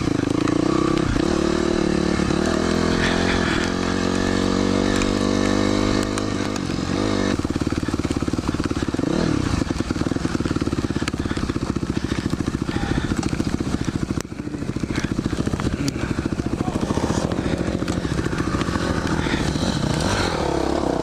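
Dirt bike engine running under load as it is ridden, its revs rising and falling repeatedly, settling into a steadier pulsing run after about seven seconds.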